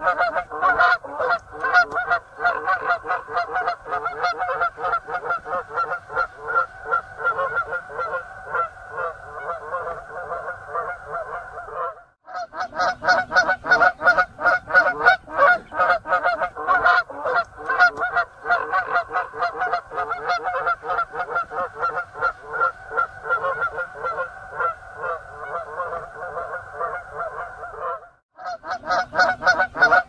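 A flock of domestic geese honking together: a dense, overlapping chatter of calls. It breaks off for a moment twice.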